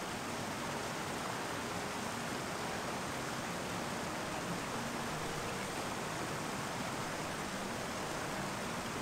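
Shallow mountain stream rushing steadily over rocks and stones.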